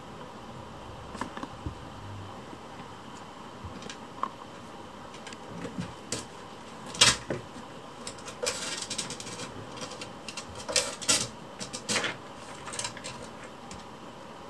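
Kittens' paws and claws tapping, knocking and scrabbling on furniture as they play, over a faint steady room hiss. The knocks come scattered and irregular, more often in the second half, with the loudest sharp knock about halfway through and a brief stretch of scratchy scrabbling just after it.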